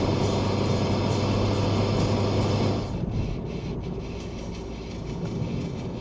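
Cabin noise of an Alfa Romeo Giulietta driving at about 110 km/h: road and wind noise over a steady low engine drone. About three seconds in it drops suddenly to the quieter noise of the car rolling at low speed.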